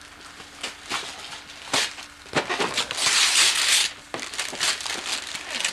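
Wrapping paper crackling, crumpling and tearing as a present is unwrapped, in irregular bursts with a longer, louder stretch of rustling a little past halfway.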